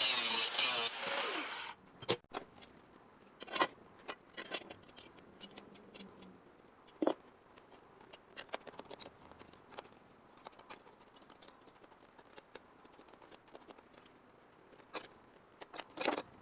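A power saw cutting rusted sheet-metal body panel, loud and rasping, stops about a second and a half in. Then come scattered light clicks and taps of metal pieces and tools being handled.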